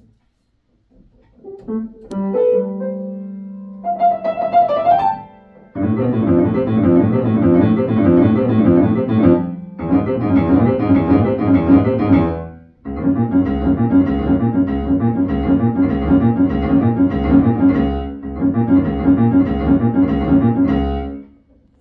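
Piano-like keyboard music: a few separate notes at first, then a steady rhythmic passage from about six seconds in, with two short breaks, stopping shortly before the end.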